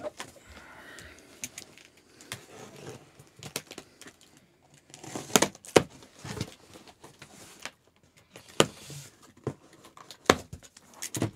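Small items and cardboard packaging being handled: scattered rustling and clicking, with several sharp knocks, the loudest about midway and near the end.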